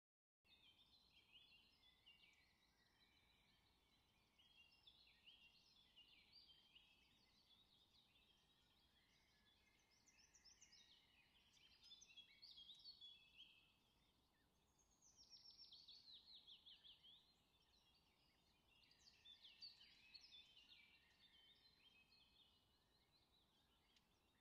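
Faint birdsong: several small birds chirping and twittering on and off, with a quick run of falling trilled notes about fifteen seconds in.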